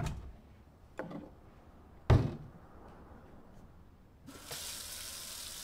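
Kitchen cabinet door and glass knocks: a thump, a lighter clink about a second later, and the loudest thunk about two seconds in. About four seconds in the kitchen tap is turned on, and water runs steadily from the faucet to fill a glass.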